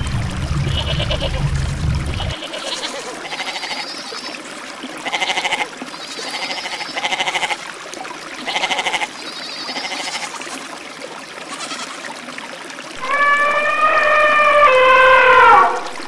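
Goats bleating: a string of short calls about once a second, then two longer, louder calls near the end, the last falling in pitch. A low rumble runs under the first two seconds and then stops.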